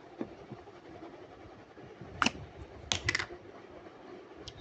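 Sticky slime being pressed and pulled by hand, giving a few sharp clicking pops, one about two seconds in and a quick cluster about three seconds in.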